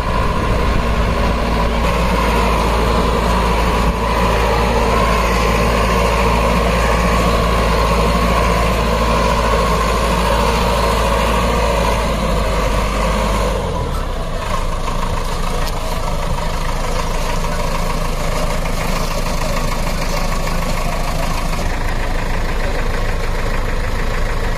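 JCB 3DX backhoe loader's diesel engine running steadily close by, its note changing abruptly about halfway through to a lower, rougher running sound.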